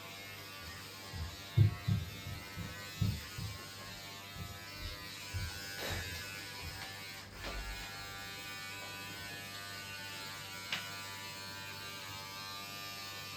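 Electric hair clippers buzzing steadily while cutting a boy's hair short, with a few soft low knocks in the first half.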